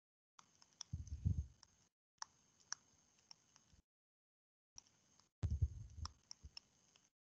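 Pen or stylus tapping and scratching on a tablet screen while writing: a string of faint sharp clicks with two spells of dull low thumps. The sound keeps cutting out to dead silence.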